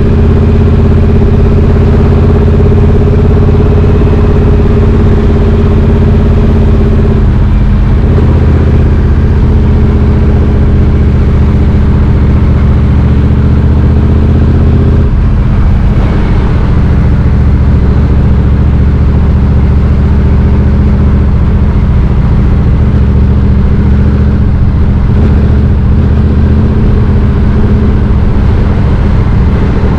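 2020 Triumph Street Twin 900's 900 cc parallel-twin engine running through British Customs slash-cut exhaust tips while riding, its note steady with two brief breaks and shifts in pitch, about seven and fifteen seconds in.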